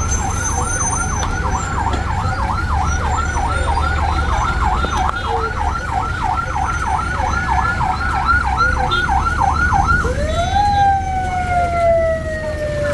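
Emergency vehicle siren on a fast yelp, sweeping up and down about three to four times a second. About ten seconds in it switches to a slow wail that rises once and then falls slowly, over the low rumble of street traffic.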